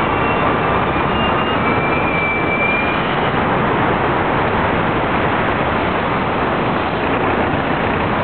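JR East 209 series electric train stopping at a platform. High thin wheel and brake squeals fade out over the first three seconds, over a steady loud rushing noise from the train.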